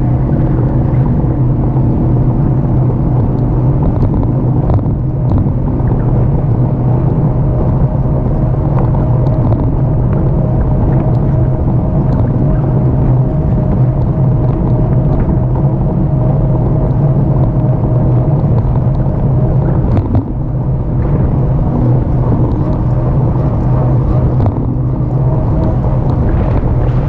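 Steady rumble of tyres on rough pavement and wind buffeting a camera mounted low on a moving e-bike, with a thin steady tone through the middle stretch.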